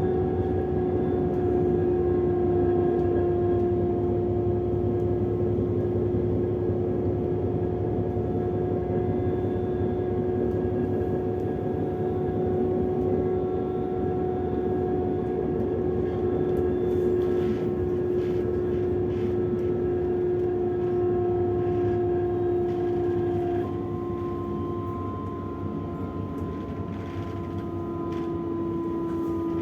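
Class 425 electric multiple unit running along the line, heard from inside the car: steady rolling rail noise under a constant whine. About 23 seconds in the whine steps slightly lower in pitch and the whole sound gets a little quieter.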